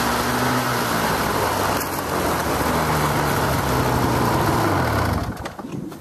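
Snowmobile engine idling, its pitch sagging lower, then shut off about five seconds in.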